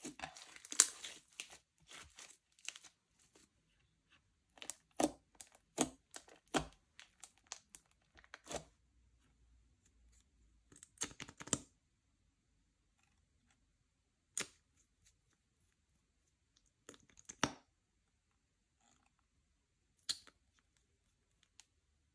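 Slime being pressed and pulled apart by hand, giving short sticky crackles and pops. There is a dense run at the start, then scattered clusters with pauses of a few seconds between them.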